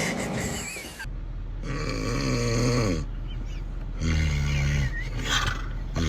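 Person snoring: a long buzzing snore of about two seconds starting a second in, then another about four seconds in, followed by a shorter noisy breath near the end.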